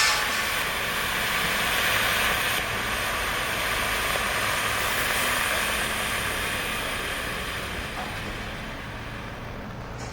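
A firework cake hissing as it burns out, a steady noisy rush without distinct bangs that slowly fades away.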